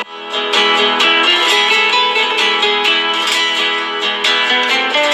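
Background music: fast plucked acoustic guitar with many quick notes and strums, in a Spanish or flamenco style.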